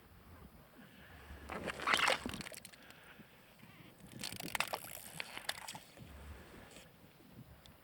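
Water sloshing and splashing in two bursts, a short one about two seconds in and a longer one from about four seconds in.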